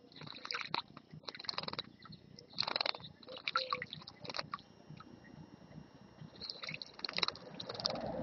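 European goldfinches bathing in a shallow stone bird bath, beating their wings in the water in short splashing bouts of a fraction of a second, repeated several times.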